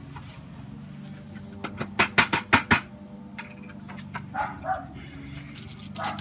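Plastic buckets being handled: a quick run of sharp hollow clacks about two seconds in. A few short barks follow, over a steady low hum.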